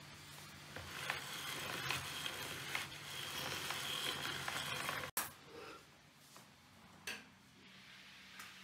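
Hand-cranked pasta machine rolling a sheet of homemade noodle dough through its rollers: a steady whirring with small clicks. It cuts off abruptly about five seconds in, leaving quiet room tone with one light click near the end.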